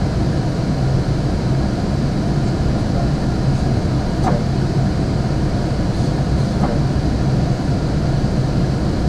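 Steady flight-deck noise of an Airbus A380 in flight: a constant rush of airflow and air-conditioning, heaviest in a low hum. Two faint short chirps come about halfway through.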